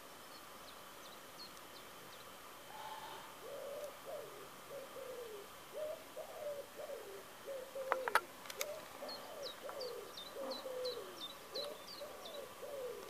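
Bird calling in the background: a steady run of short, low notes, about two a second, starting a few seconds in. A second, higher-pitched bird adds quick falling chirps, about three a second, near the end. Two sharp clicks come about eight seconds in.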